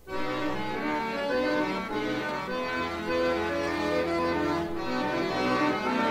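Classical concert accordion music, starting right after a brief silence, with sustained chords and moving lines over held low notes.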